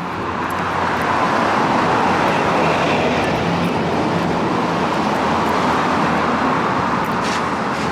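Steady rush of road traffic noise from vehicles passing close by. It builds over the first second or two, then holds.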